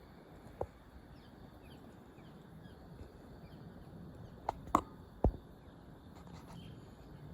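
Steady outdoor background noise with faint, short, high bird chirps. It is broken by sharp clicks: one near the start, then three loud ones in quick succession a little past the middle.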